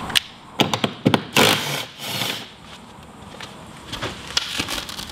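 Cordless drill fastening a bolt-on climbing hold to the wall: a few sharp clicks, then the drill runs in two short bursts about a second and a half and two seconds in.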